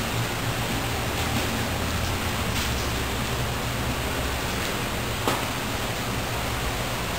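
Steady, even hiss with no pitch, and a single faint click about five seconds in.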